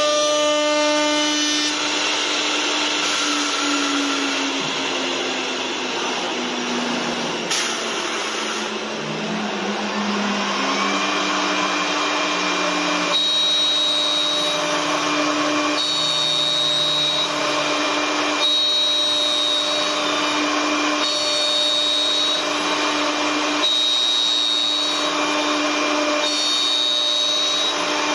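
CNC wood-turning lathe running with a steady motor whine while the cutter shaves the spinning workpiece. In the first half the motor pitch slides up and down, and in the second half the cutting noise swells and drops in a regular cycle about every two and a half seconds as the tool makes repeated passes.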